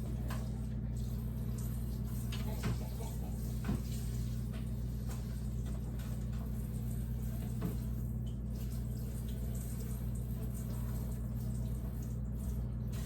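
Water running steadily from a faucet into a sink as a refrigerator part is washed, with a few light knocks, over a constant low hum.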